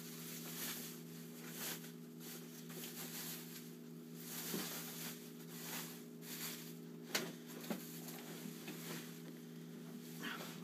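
Thin plastic bag rustling faintly in short bursts as it is pulled off a flat-screen TV, with a couple of light taps a little past halfway, over a steady low hum.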